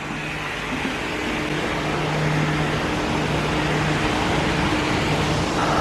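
Steady mechanical hum of a ventilation fan, with a low drone, growing louder over the first couple of seconds.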